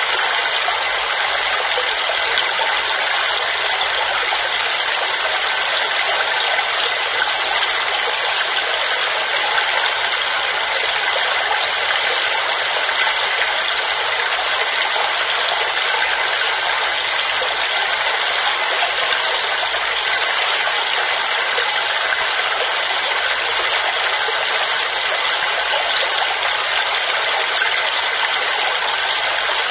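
Waterfall: a steady, unbroken rush of falling water, hissy and bright with little low rumble.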